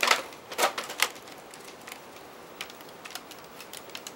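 Handling of a plastic Nerf blaster: a few sharp plastic clicks and knocks in the first second, then lighter scattered ticks.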